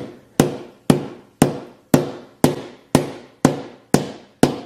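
A 3-pound hammer tapping the Galaxy S8 Plus's Gorilla Glass 5 screen in a steady rhythm, about two strikes a second, each a sharp knock with a brief ringing tail.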